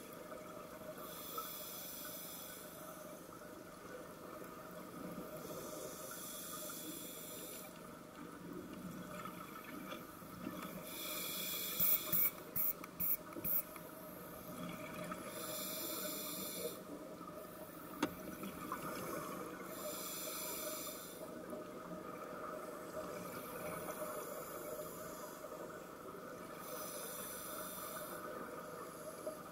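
Scuba regulator breathing heard underwater: a hissing, bubbling breath cycle about every four seconds over a steady underwater hum, with a few sharp pops a little before the middle.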